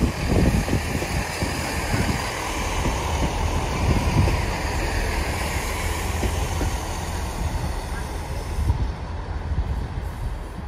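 GWR Networker Turbo diesel multiple unit passing close by, its diesel engines running and its wheels rumbling steadily on the rails, with a few louder wheel knocks near the start and about four seconds in.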